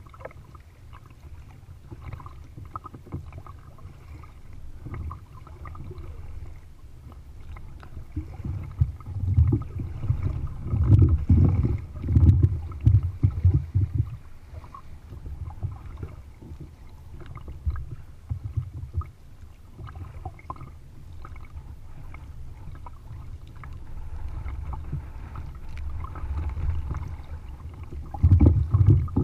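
Kayak on choppy water, heard from the bow: water slapping and sloshing against the hull while a double-bladed paddle dips and splashes on each stroke. A low rumble swells louder about a third of the way in and again near the end.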